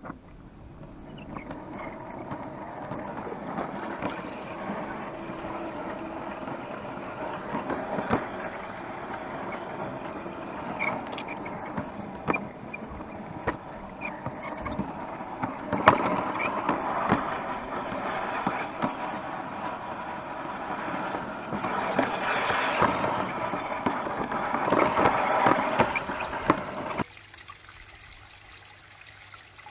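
Rolling rattle of a G scale garden-railway train heard from a camera riding on a wagon, with scattered sharp clicks of wheels on the track. It swells as the train gets under way and cuts off suddenly near the end, leaving a quieter outdoor background.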